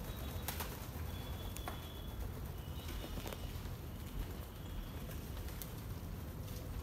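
Pigeons flying about indoors: a few wing-flaps and clicks, with several short high chirps, over a steady low rumble.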